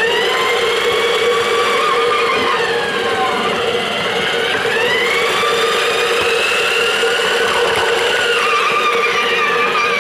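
Battery-powered electric motor and plastic gearing of a Playmobil RC freight locomotive whining as it runs along the track, the whine gliding up and down in pitch a few times as its speed changes.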